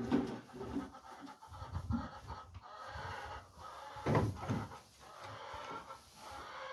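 Farm animals close by: short calls about two and four seconds in, with breathing sounds between.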